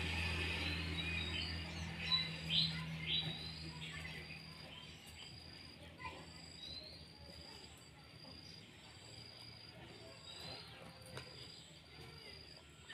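High insect chirps repeating at an even pace throughout, over a low engine hum that fades away during the first few seconds. A few short sharp clicks stand out about two to three seconds in.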